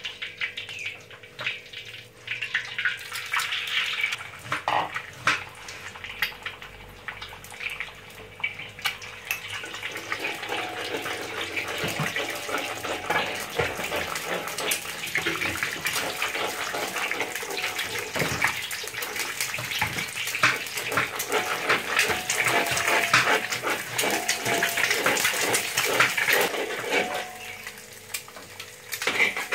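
Hot oil sizzling in a wok, then eggs going in about a third of the way through and frying with a dense, crackling sizzle while a spatula stirs and scrambles them. The sizzle dips briefly near the end.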